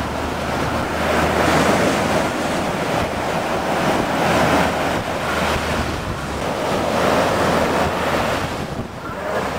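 Jet ski running through surf: rushing water and wind noise on the microphone over a low, steady engine drone, swelling and easing about every three seconds.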